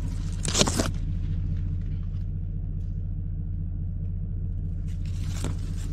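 Steady low rumble of an idling engine. A brief, loud rustling scrape comes about half a second in, and a fainter one near the end.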